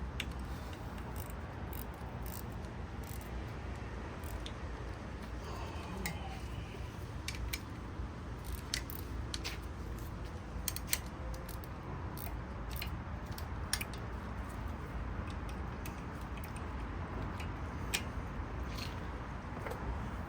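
Scattered sharp metallic clicks and taps of hand tools and bolts as bolts are threaded in and tightened on the engine block, over a steady low hum.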